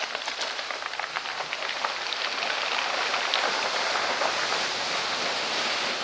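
Ocean waves surging in between shoreline boulders, white water rushing and splashing over the rocks. The rush grows a little louder after the first couple of seconds.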